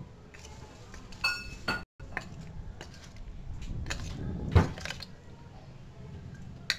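Metal spoon stirring paneer cubes through thick batter in a stainless steel bowl: a low scraping, broken by several sharp clinks of the spoon against the steel. One clink rings briefly about a second in, and the loudest comes about two-thirds of the way through.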